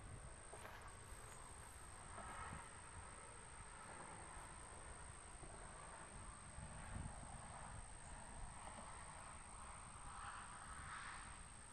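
Quiet outdoor ambience: a faint steady high-pitched whine over soft background hiss, with a few faint distant sounds swelling and fading.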